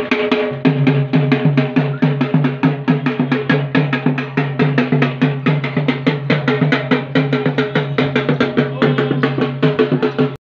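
Drum music: fast, even drumbeats, about five or six strokes a second, over a steady low drone.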